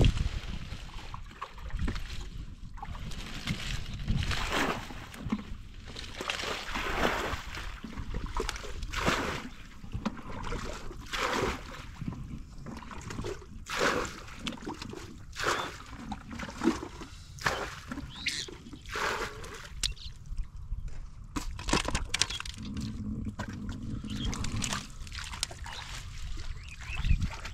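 Hands sloshing and splashing through shallow muddy water and soft mud, in irregular splashes every second or so, while groping for fish by hand.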